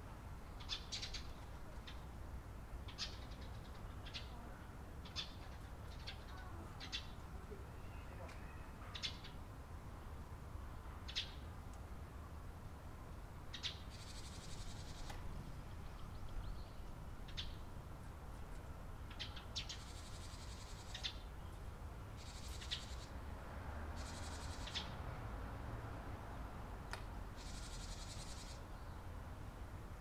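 Eurasian tree sparrows chirping: short, sharp chirps every second or two, over a low steady background rumble, with a few brief hissy rustles in the second half.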